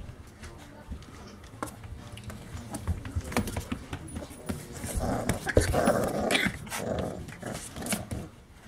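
Pit bull puppies growling as they play-fight, with paws and bodies scuffling on soft bedding. The sound is loudest and busiest for a couple of seconds just past the middle.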